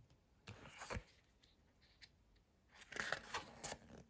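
Faint rustling and tapping of a paperback picture book being opened and its pages turned, in two short spells.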